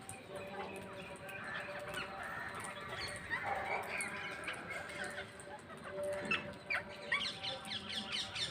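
A group of parrots calling with harsh, overlapping squawks and chirps, ending in a quick run of short, sharp calls in the last two seconds.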